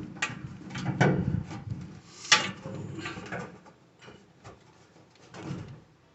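Scattered clicks and knocks from hands handling the washer's parts and wiring while connecting the ground wire, with one sharp click about two seconds in.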